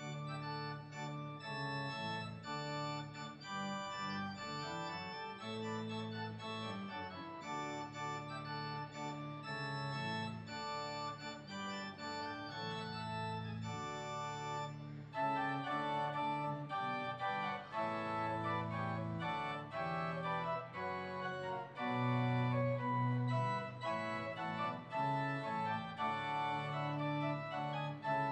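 Church organ playing a postlude of held chords after the dismissal, growing fuller and louder about halfway through.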